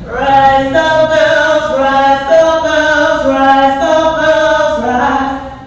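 A woman's voice singing a chanted refrain a cappella, in held notes that step up and down in pitch.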